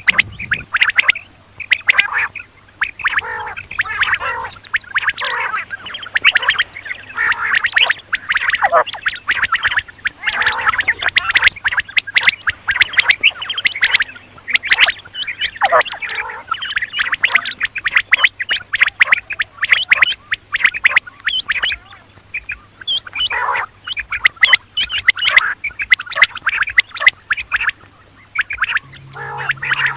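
Quail calling, many short harsh chattering calls and clicks overlapping in a dense unbroken stream, with a few quick downward-sliding notes.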